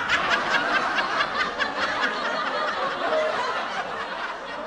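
Laughter, several voices at once, starting in quick ha-ha pulses and thinning into a fading chuckle by the end.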